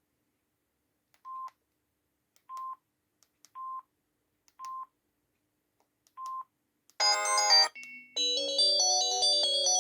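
Samsung SGH-C140 mobile phone: five short single-pitch beeps, each with a faint click just before it, then about seven seconds in a loud polyphonic ringtone melody starts playing from the phone's speaker.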